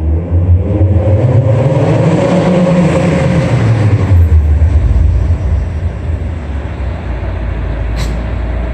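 Mazda Miata four-cylinder exhaust through a Hooked Aerochamber muffler, echoing in a concrete parking garage: the engine note climbs over about three seconds, drops back and settles to a low, steady drone. A sharp click comes near the end.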